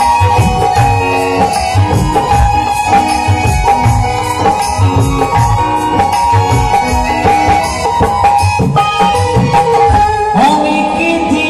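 Live Bengali baul band playing: a steady drum beat under a held melody line, with the singer's voice coming in near the end.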